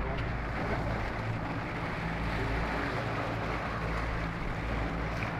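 A boat's engine runs steadily, with water rushing along the hull and wind noise on the microphone.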